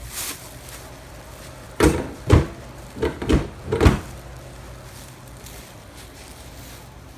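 A quick run of about five dull knocks or thumps, about two seconds in, over a quiet background.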